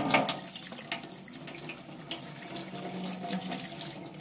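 Tap water running over mushrooms in a wire-mesh strainer and splashing into a stainless steel sink as they are rinsed.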